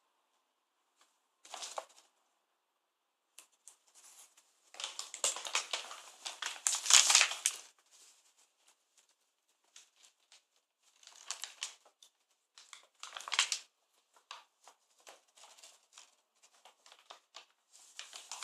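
Brown paper bag crinkling and rustling in irregular bursts, with a cat inside it moving about while the bag is handled. The longest and loudest stretch comes a few seconds in and lasts about three seconds; shorter rustles and single crackles follow.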